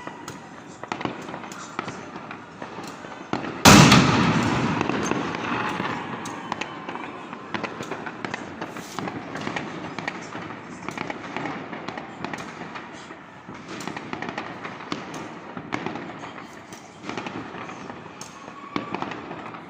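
New Year fireworks going off in a dense, steady crackle of many pops and bangs. One very loud close blast comes about four seconds in and dies away over a few seconds.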